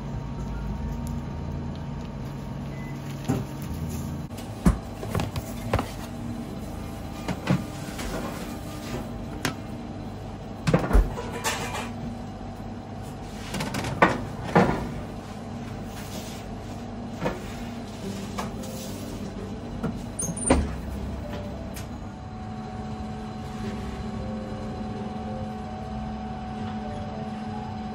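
Bakery kitchen sounds: a steady machinery hum under scattered sharp metal clanks and knocks as loaf tins are handled and loaded into a deck oven, the loudest knocks clustered around the middle.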